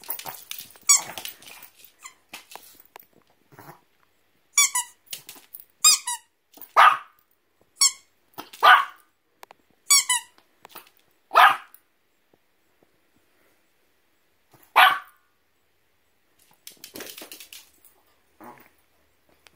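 An excited dog whining in short, high-pitched, wavering cries, with four sharp barks spaced about two to three seconds apart from about seven to fifteen seconds in.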